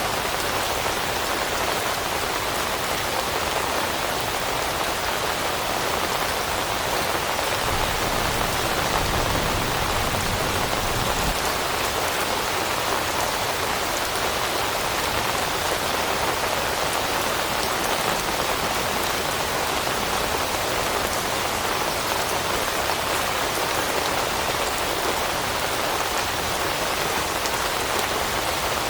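Steady rain falling on leaves, an even continuous patter with no break.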